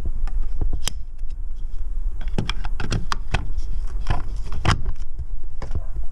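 A series of sharp plastic clicks and knocks as a blue 240 V hook-up plug is pushed into the van's mains inlet and its flip-up cover is handled, over a steady low rumble.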